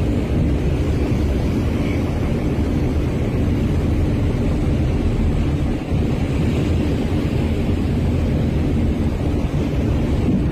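Wind buffeting the microphone over a loud, steady low rumble, with a faint droning hum underneath.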